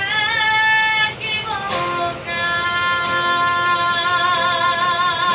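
A woman singing held notes; from about two seconds in she sustains one long note with a wide vibrato.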